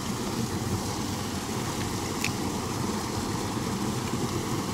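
Steady rush of water pouring over a small concrete weir into the pool below.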